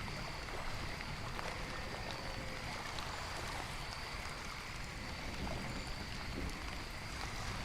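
Steady rain ambience: an even hiss with no distinct drops or events, and faint steady high tones above it.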